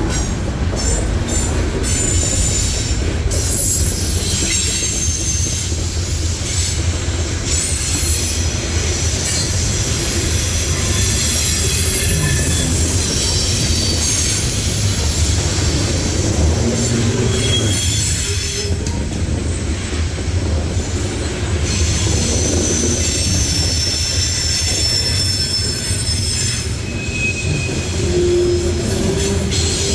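Norfolk Southern train's cars rolling past, steel wheels squealing shrilly on the rails over a steady low rumble.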